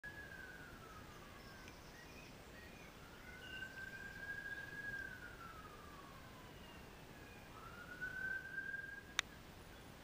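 Faint emergency-vehicle siren wailing: one tone sliding slowly up and down in three long rises and falls. A single sharp click sounds just after nine seconds.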